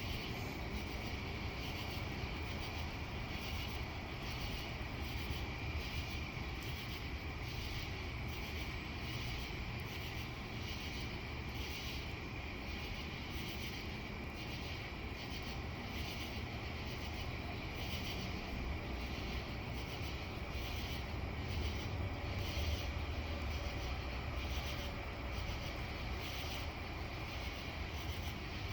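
Crickets chirping in a steady pulsing rhythm with a continuous high trill, over a low steady rumble.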